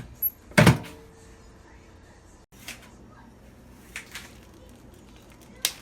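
Microwave oven door shut with a single thud and a brief ring just over half a second in, followed by a few lighter clicks. A faint steady low hum sets in about two and a half seconds in.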